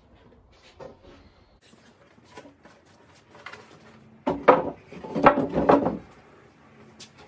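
Plywood panels of a Murphy bed frame knocking and scraping against the cabinet as they are handled and set in place, with light clicks at first and a loud run of wooden knocks about four to six seconds in.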